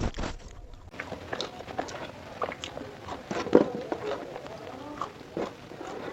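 Close-up mukbang eating sounds: mouth chewing and biting fried food, with many irregular wet smacks and crisp crunches, the loudest about three and a half seconds in.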